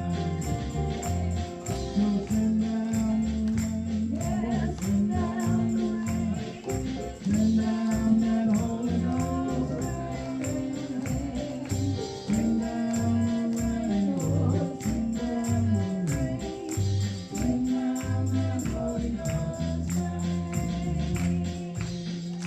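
Gospel-style church worship music: a melody line that bends in pitch over a steady, even percussion beat.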